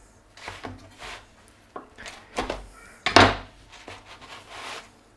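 Baked pizza slices being handled and set down on a wooden cutting board: the crust rubs and scrapes on the wood in about six short rustles, the loudest a little past three seconds in.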